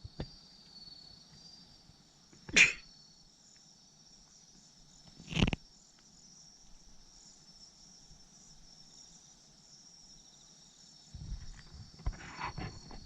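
Insects chirping in a steady, high-pitched trill. Two sharp knocks about two and a half and five and a half seconds in are louder than the insects, and rustling and clicks come in near the end.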